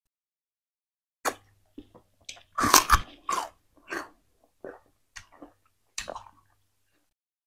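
A person chewing a mouthful of peeled sugarcane close to a clip-on microphone: about ten crunching bites, starting about a second in, the loudest about three seconds in.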